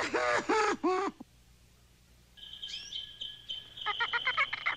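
A cartoon hyena cackling with laughter for about the first second. After a short silence, cage birds chirp over a steady high whistle, with a rapid trill near the end.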